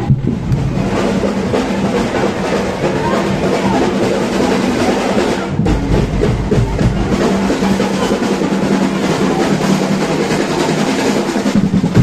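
Carnival street percussion band drumming a fast, driving rhythm, snare-type and bass drums together, with a brief break about halfway through.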